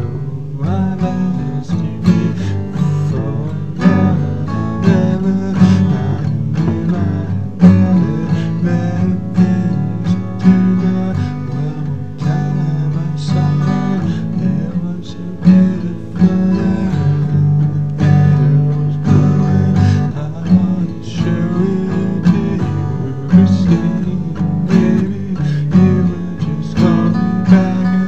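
Improvised instrumental blues jam on layered, overdubbed acoustic guitars, strummed and picked.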